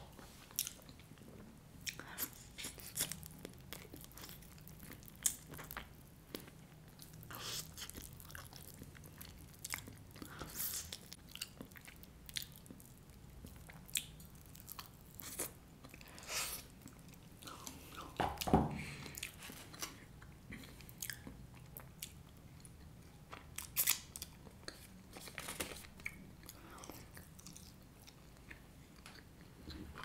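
Close-miked mouth sounds of a person biting and chewing food, with crisp crunching and wet clicks, including one louder low thud a little past halfway.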